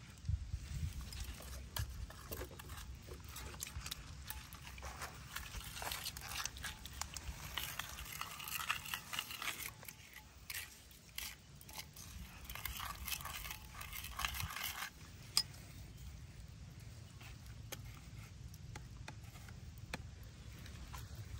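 Metal spoon stirring and scraping in a small bowl of wet chili sauce, with light clinks against the bowl, busiest in the middle.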